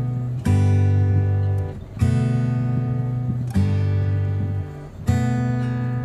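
Background music: acoustic guitar strumming sustained chords, a new chord struck about every one and a half seconds.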